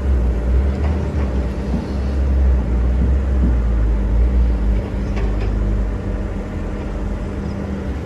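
Excavator's diesel engine running under load with a steady low drone; the deepest part of the drone eases about five seconds in.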